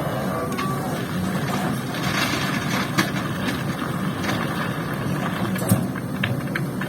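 Hydraulic excavator's diesel engine running steadily at a work site, with two sharp knocks, one about halfway through and one near the end.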